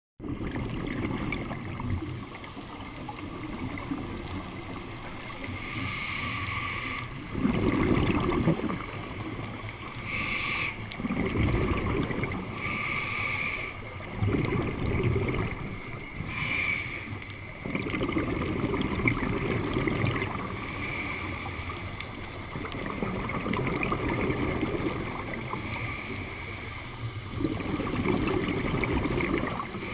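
Scuba breathing heard underwater through an open-circuit regulator: a short hiss on each inhale, then a longer rush of exhaled bubbles, repeating about six times at a slow, even pace.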